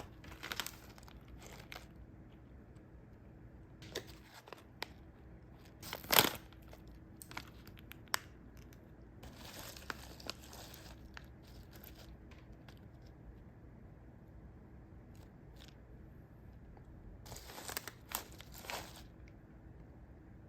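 Plastic packaging of a kakinotane rice-cracker packet being crinkled and torn open, in scattered rustling bursts with one sharp loudest rip about six seconds in and a last rustle near the end.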